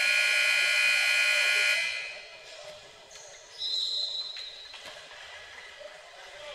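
Gym scoreboard buzzer sounding one loud, steady blast of about two seconds. A shorter, fainter high tone follows about three and a half seconds in.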